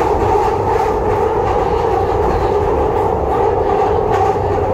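Glasgow Subway car running through the tunnel, heard from inside the carriage: a steady, loud rumble of wheels and running gear with a constant droning tone over it.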